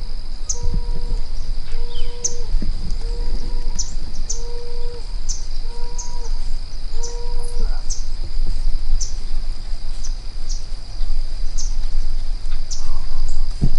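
Insects keeping up a steady high whine with short chirps repeating about every two-thirds of a second, over a low rumble. In the first half a separate call sounds: about eight evenly spaced, level notes, each about half a second long.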